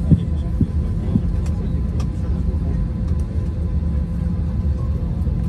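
Steady low cabin rumble of an Airbus A321 taxiing, engines and rolling wheels heard from inside the cabin, with a few dull bumps in the first second or so.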